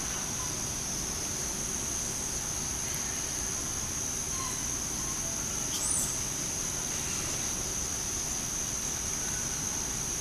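Insects droning steadily at one high pitch over a constant outdoor hiss, with a single short high chirp about six seconds in.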